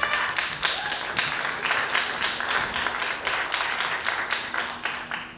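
Audience applauding, a dense patter of many hands clapping that tails off near the end.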